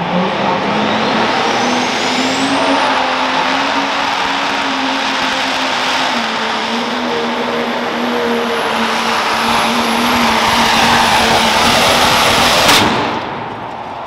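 A pulling tractor's engine runs at full power as it drags the weight sled, with a high whistle that climbs over the first few seconds and then holds. Near the end there is one sharp bang and the engine noise drops away at once, as the tractor disappears in white smoke: the sign of the engine letting go.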